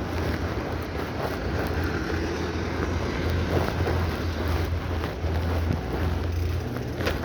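Wind buffeting the microphone of a moving bicycle, a steady low rumble over a hiss of tyre and road noise, with a couple of short clicks near the end.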